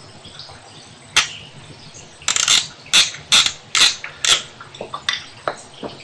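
Footsteps: a run of about ten sharp steps, roughly two a second, loudest in the middle and weaker toward the end. A single click comes about a second before them.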